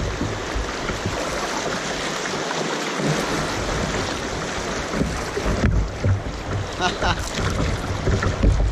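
Shallow river rapids rushing steadily around a kayak running through them, with splashing and irregular low rumbles.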